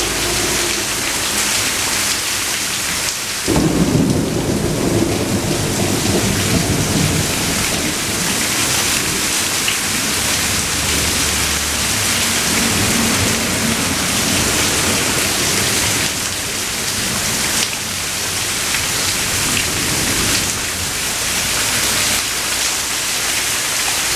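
Steady rain with thunder. A rumble of thunder breaks in suddenly about three and a half seconds in, rolls on for a few seconds and dies away, with fainter rumbling later.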